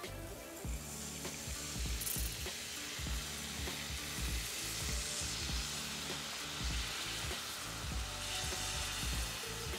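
Chicken stock pouring into a stainless steel skillet of hot flour-and-fat roux and sautéed vegetables, sizzling steadily as the liquid hits the pan.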